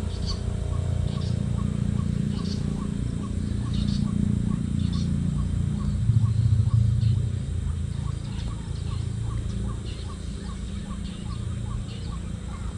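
Rural outdoor ambience: a steady low rumble, a short call repeating about three times a second, and scattered higher bird chirps.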